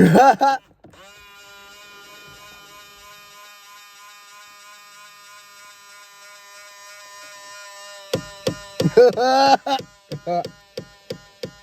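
2000 Ford Explorer power side mirror motor running with a steady electric whine with many overtones for several seconds, the odd noise of the faulty mirror. About eight seconds in, louder squawking bursts and rapid regular clicking take over.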